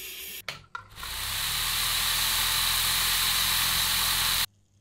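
Abrasive blasting hiss briefly at the start. After a couple of short knocks, a small vibratory tumbler full of ceramic media starts up: a dense, even hiss of churning media over a low motor hum, building up over about half a second and cutting off abruptly near the end. The tumbler is polishing a small part.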